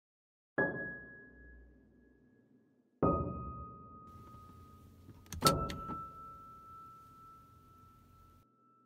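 Designed title-sequence hits: two sudden low booms, about 0.6 s and 3 s in, each with a ringing high tone that fades slowly. About 5.5 s in comes a sharp cluster of clicks, and then another long ringing tone that fades out.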